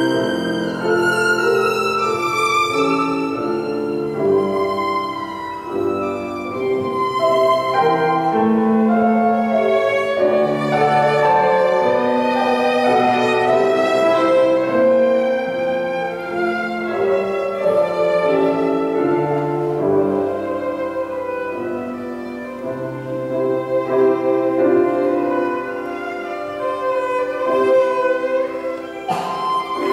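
Live violin and grand piano duo playing a classical piece, the violin carrying a continuous bowed melody over piano accompaniment.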